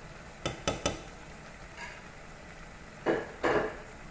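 Spoon stirring and scraping a frying masala in a pan: three quick clinks about half a second in, then two longer scrapes near three seconds in, over a faint steady sizzle.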